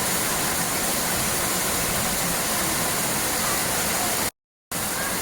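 Steady rush of falling or fast-flowing water, an even roar of noise that cuts out to complete silence for about half a second near the end, then resumes.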